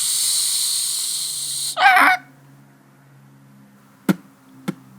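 A steady hiss for nearly two seconds, cut off by a short honk-like vocal sound. Then it goes quiet apart from a few light taps.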